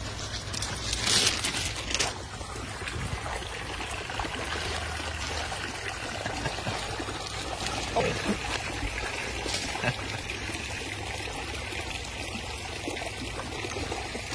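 Water trickling and pouring steadily, with a brief louder rush about a second in.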